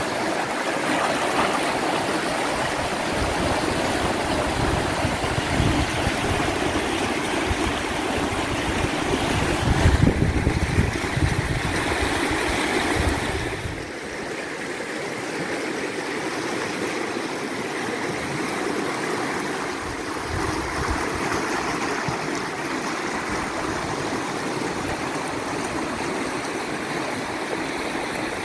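Steady rush of river rapids, with low rumbling in the first half. About fourteen seconds in, the sound drops a little and turns thinner.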